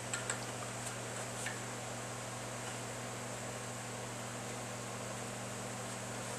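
Steady low hum with an even hiss, the background of a workshop, with a few faint soft clicks in the first second and a half.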